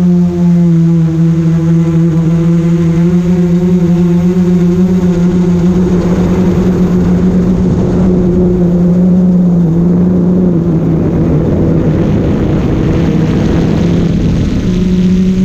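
GoPro Karma quadcopter's propellers humming at a steady pitch, with gusty wind rushing over the microphone from about six seconds in until near the end.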